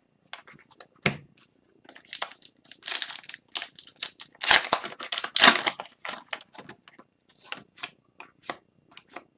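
Foil wrapper of a hockey card pack being torn open and crinkled by hand: a run of irregular crackling rips, loudest about halfway through.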